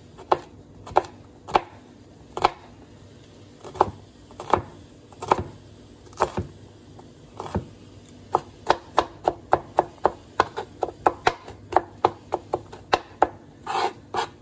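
Kitchen knife chopping garlic cloves on a cutting board. The strokes come slow and separate for the first half, then turn into quicker, even chopping of about three to four strokes a second as the garlic is minced.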